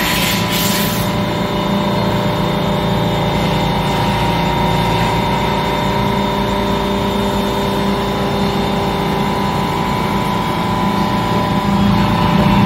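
Deckel Maho DMU 50 evolution vertical machining centre running: a steady mechanical hum with a constant whine over it. There is a brief hiss in the first second, and the machine gets slightly louder near the end.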